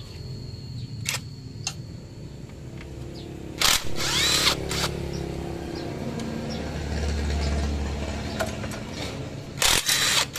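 Cordless power driver with a socket unscrewing engine bolts, running in two short bursts: one about four seconds in, with its motor whining up in pitch, and a shorter one near the end.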